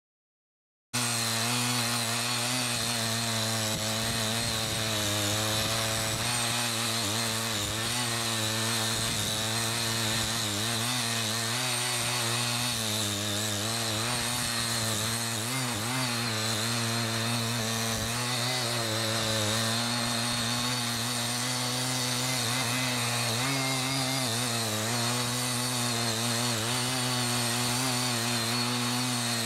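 Small engine of a light-duty walk-behind tiller starts sounding about a second in and runs steadily as the machine cultivates the soil, its pitch wavering slightly under load.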